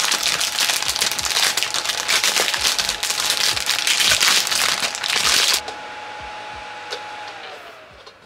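Plastic wrap crinkling as it is pulled off a Divoom Ditoo pixel-art speaker, loud and continuous, stopping suddenly about five and a half seconds in; a much softer hiss follows.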